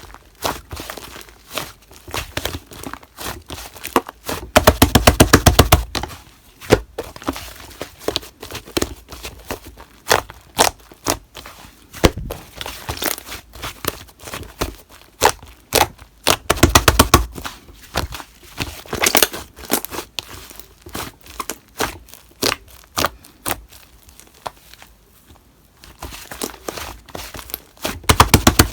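Slime being squished, stretched and pressed by hand, giving rapid trains of small popping clicks and crackles from trapped air. The densest, loudest bursts come about five seconds in, around seventeen seconds in and again near the end.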